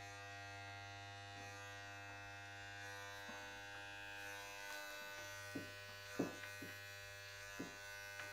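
Corded electric hair clippers running with a steady buzz, with a few soft clicks in the second half.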